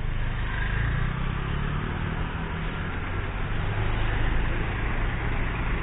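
Large tour coach's diesel engine running as the coach drives slowly past close by, a low steady engine note.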